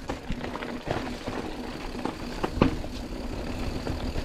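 Mountain bike rolling down a rocky trail: tyres crunching over stones and the bike knocking and rattling over bumps, with a sharper knock about two and a half seconds in, over a steady faint hum.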